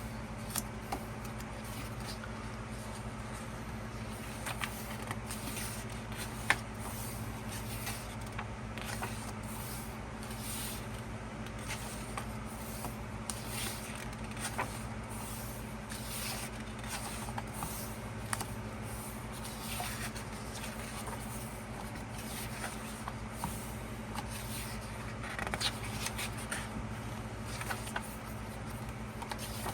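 Pages of a glossy album photo book being turned and handled: scattered faint paper rustles and light taps over a steady low electrical hum.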